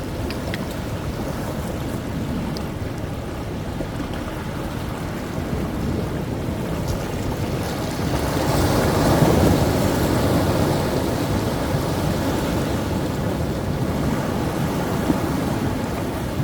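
Rough sea surf: waves crashing and washing in continuously, one big wave breaking about eight seconds in and rolling on for a few seconds, with wind on the microphone.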